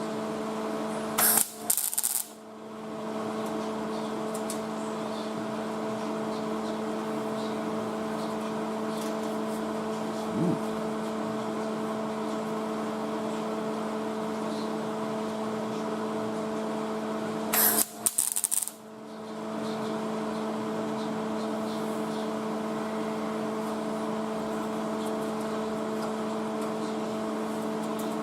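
Two short bursts of welding arc crackle, about a second in and again about 17 seconds later, each a brief tack weld. A steady electrical hum runs underneath and dips briefly after each burst.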